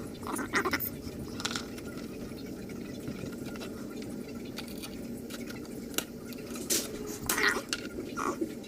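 Scattered small clicks and rattles from a smoke detector's wiring connector and plastic mounting parts being handled during its replacement, over a steady low hum.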